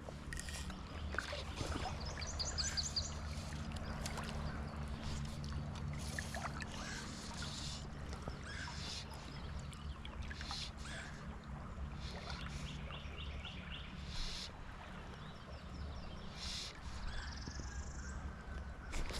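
A boat's motor runs with a low steady hum out on the river and fades away about three-quarters of the way through. Scattered light clicks and a couple of short, high bird trills are heard over it.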